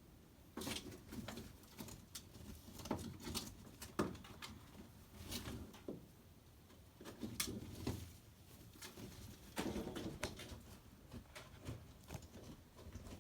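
A dog reverse sneezing: short bursts of rapid, noisy inhalations through the nose, repeating every second or two with brief pauses between.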